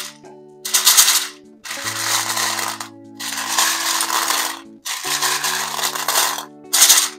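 Hands stirring and scooping a tin full of hard, clear bear-shaped pieces, which clatter and clink against each other and the tin in repeated rattling bursts about a second long. Background music with held notes plays underneath.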